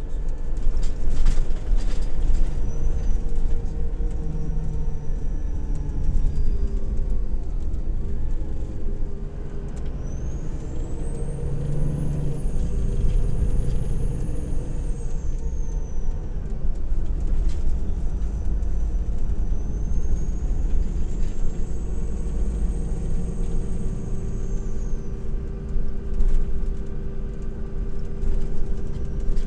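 Cabin noise inside an Irisbus Crossway coach under way: a steady low diesel engine rumble with road noise and scattered light rattles. A high whine rises and then falls in pitch twice, starting about ten seconds in and again about seventeen seconds in.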